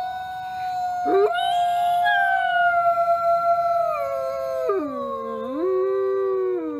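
Long, drawn-out canine howling with two voices overlapping. One howl is held steady and then slides lower; the second joins about a second in and drops low and wavers near the end.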